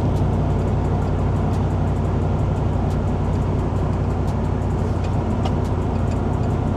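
Porsche Cayenne cabin noise while driving: steady engine and road drone, with faint scattered ticks from a rattle behind the seats, traced to loose RCA cables.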